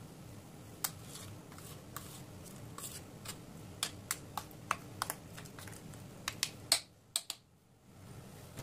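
Spatula tapping and scraping against a stainless steel mixer-grinder jar while the ground dal batter is scraped down between grinds: a dozen or so faint, irregular sharp clicks over a low steady hum.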